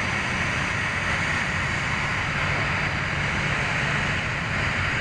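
Jet airliner engines running with a steady rush and rumble, holding an even level throughout.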